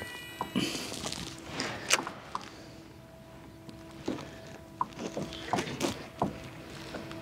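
Scattered short knocks and taps on a plastic fishing kayak while a baitcasting reel is cranked to retrieve a cast, with a faint steady hum starting a couple of seconds in.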